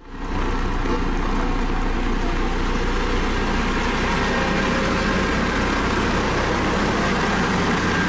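Dynapac CC522 tandem-drum asphalt roller's diesel engine running steadily as the roller drives over the fresh asphalt, an even low hum.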